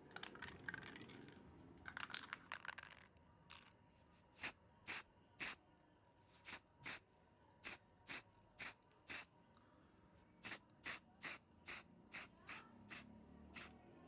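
Aerosol spray-paint can spraying: two longer sprays near the start, then a run of short, quick bursts, roughly two a second, with a brief pause about two-thirds of the way through.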